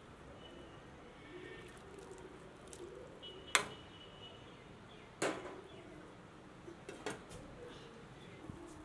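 Three sharp knocks over a faint background, the first about three and a half seconds in and the others just under two seconds apart; the first rings briefly.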